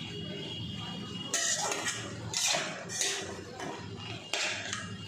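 A metal spoon scraping and stirring chopped vegetables in a metal kadai: several scraping strokes, starting about a second in and coming every half second or so.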